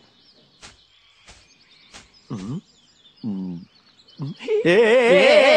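A man's voice doing a spooky, quavering mock-ghost laugh to frighten someone: two short vocal sounds about two and three seconds in, then a loud, long wavering laugh from about four and a half seconds in. Faint bird chirps and a few soft clicks in the quiet before it.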